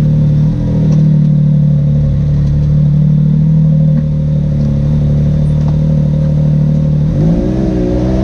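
Side-by-side UTV engine heard from inside the cab, holding steady low revs, then revving up and down from about seven seconds in.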